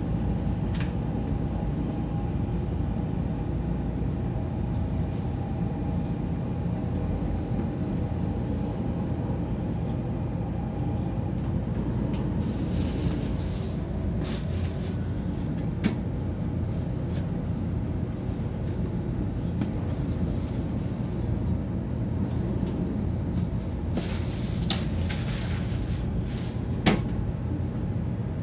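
Steady low rumble inside a 500-series Shinkansen car as it slows to a stop along a station platform. A faint whine fades out in the first ten seconds or so, there are two short hisses, and a few sharp clicks come near the end.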